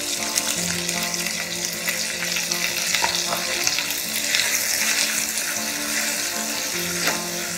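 Sliced red onions sizzling in hot oil in a nonstick kadai, with a wooden spatula stirring them through the pan.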